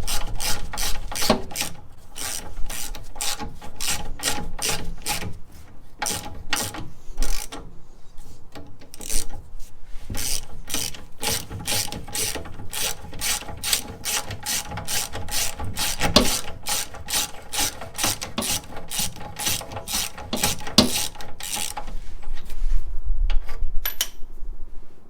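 Socket ratchet clicking in quick, even strokes, about three clicks a second, as a notched bolt is screwed in and out of a VW Beetle front beam's mounting threads to clean rust and gunk from them. The clicking stops near the end.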